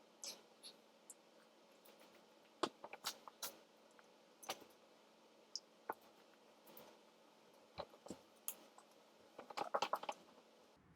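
Quiet eating sounds from a person working through chicken nuggets: scattered soft clicks and mouth noises, with a quick run of clicks about nine seconds in.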